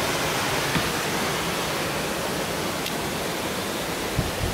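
Steady rush of falling water from Turner Falls, a large waterfall, with a couple of low thumps near the end.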